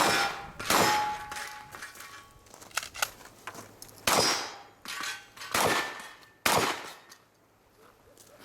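Semi-automatic shotgun fired about six times at a course of steel targets, the plates clanging and ringing after hits.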